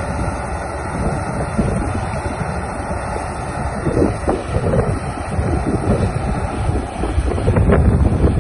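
John Deere 1170 combine harvester running as it cuts and threshes wheat, with wind buffeting the microphone.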